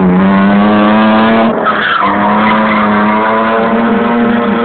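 Drift car sliding through a corner: its engine is held at high, steady revs over a continuous tyre squeal. About a second and a half in, the engine note briefly drops away and a louder burst of tyre squeal comes through, then the engine picks up again.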